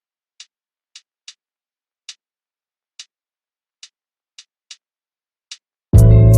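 Sharp, isolated clicks at uneven intervals over dead silence, then loud music with a deep bass and plucked strings cuts in near the end.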